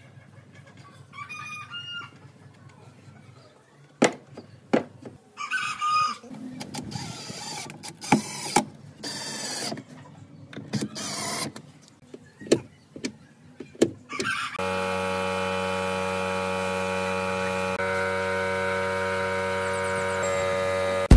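Scattered knocks and clicks of workshop handwork, with a couple of short squeaks, then a steady machine hum that starts about two-thirds of the way through and holds an even pitch.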